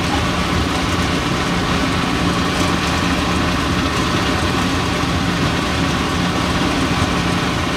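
Steady mechanical drone of a running motor, with a constant low hum that does not change.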